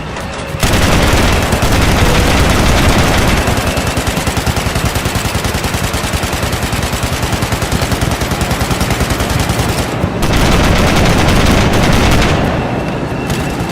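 Sustained automatic gunfire from machine guns, starting under a second in as dense rapid fire. It runs in quick regular bursts, grows louder around ten seconds in, then eases off near the end.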